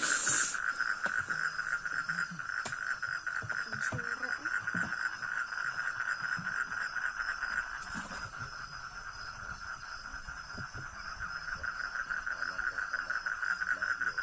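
A dense chorus of frogs calling: a fast, pulsing trill that holds steady, with a higher, fainter pulsing layer above it. A short noisy burst comes right at the start, and a few faint clicks follow.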